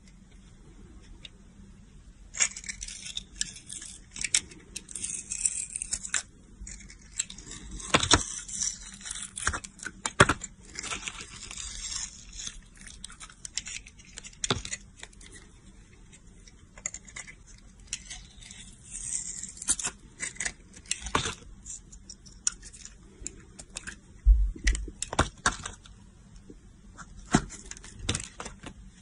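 A knife blade scraping and shaving the crusty pink glitter coating off a bar of Pears translucent soap, with crisp crackling scrapes and sharp clicks. The scraping comes in dense runs for the first part, then in sparser single strokes.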